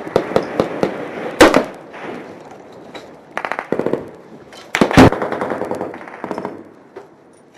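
Gunfire in a firefight: rapid bursts of automatic fire mixed with single loud cracks that echo. There is a loud crack about a second and a half in, a burst of several quick shots around three and a half seconds, and more loud cracks near five seconds, then the firing grows sparser and fainter.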